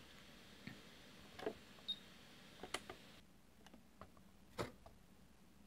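Near silence with a few faint scattered clicks and one short, high electronic beep about two seconds in, typical of a hobby radio transmitter's buttons being pressed while it is switched on and set up.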